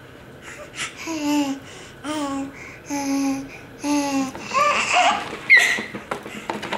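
A baby babbling: four drawn-out 'ah' sounds about a second apart, then a couple of higher squeals about five seconds in.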